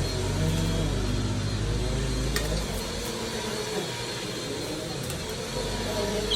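Steady rush of running water with a low hum for a green-cheeked conure's bath, with a short click about two and a half seconds in.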